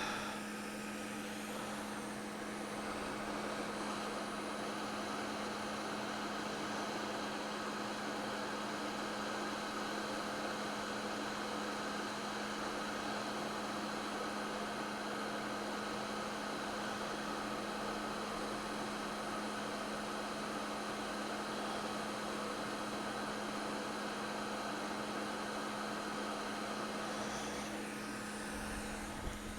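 Hot air rework station blowing steadily, a constant airy hiss with a low hum underneath.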